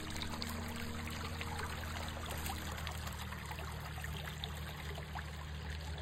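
Shallow creek trickling over stones: a steady wash of running water with many small splashes and drips.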